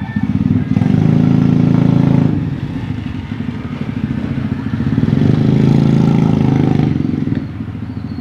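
A small engine running, swelling louder twice, about a second in and again about five seconds in, then easing off near the end.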